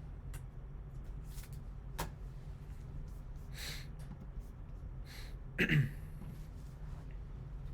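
Quiet handling of trading cards: a sharp click about two seconds in and a few soft swishes, then a short breath sound with a falling pitch near the end, over a steady low room hum.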